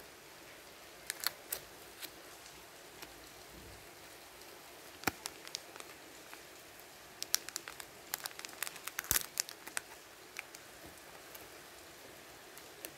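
Foil wrapper of a trading-card booster pack crinkling and crackling as fingers handle it, in scattered sharp crackles that grow busy from about seven to ten seconds in, over a faint steady hiss.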